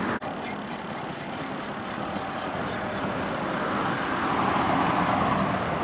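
Road-traffic noise, tyres and engines of vehicles on the highway running alongside the bridge pier, swelling as a vehicle passes about four to five seconds in.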